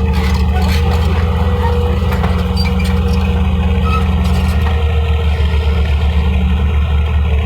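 Heavy diesel construction machine engine running steadily, a low, fast-pulsing rumble with a faint steady whine above it.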